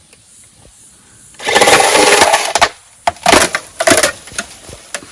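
Makita electric chainsaw run in short bursts, its chain biting into a thick stalk of bamboo with sharp cracks. One long burst comes about a second and a half in, then two shorter ones.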